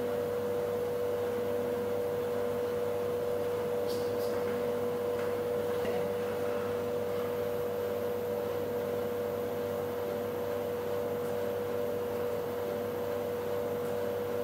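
Refrigerated drinks vending machine humming steadily with a constant electrical tone, and a couple of faint clicks about four seconds in.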